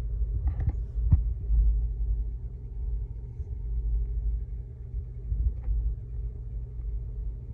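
Low, steady rumble, with a few faint short clicks.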